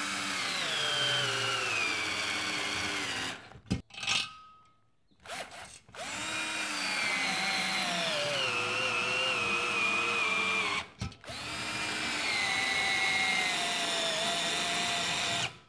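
Cordless drill with a socket adapter driving lag bolts into a wood ceiling stud: three runs of motor whine, each falling in pitch as the motor slows under the load of the bolt biting into the wood.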